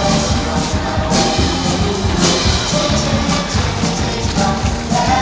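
Upbeat music with a steady drum beat.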